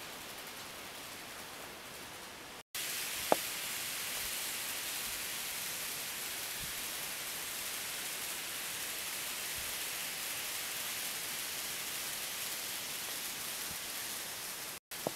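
N-scale model trains running on the track, heard as a steady hiss-like running noise, with one sharp click about three seconds in. The sound cuts out briefly just before the click, where it comes back louder, and again near the end.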